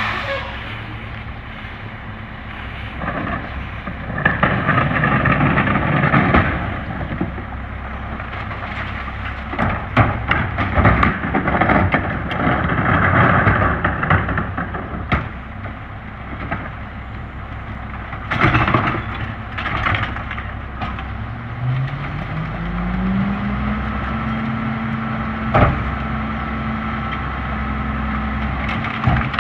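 Mack LE McNeilus rear-loader garbage truck's diesel idling while recycling carts are tipped into the hopper: two spells of contents crashing and clattering in, and sharp knocks from the carts. About 21 s in, the engine speeds up and holds a higher speed, as it does when the packer runs, with a faint steady whine over it.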